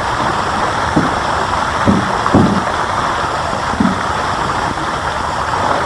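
Floating pond fountain spraying, a steady splashing rush of falling water, with a few brief low bumps.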